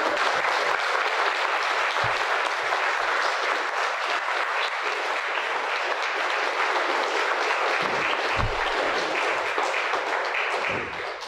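Audience applauding steadily, the clapping dying away near the end, with a couple of faint low thumps underneath.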